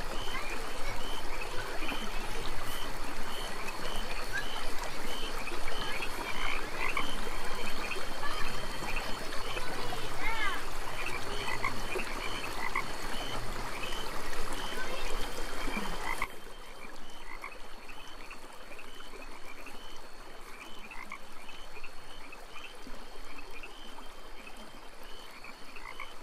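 A night chorus of frogs: short croaking calls repeated rapidly and evenly, over a steady high-pitched tone. About sixteen seconds in, the low background noise drops away while the calling carries on.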